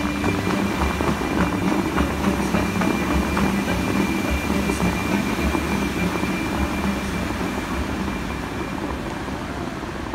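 Bellagio fountain jets spraying and their water crashing down onto the lake, making a steady rush of water. The rush grows quieter over the last couple of seconds as the jets subside.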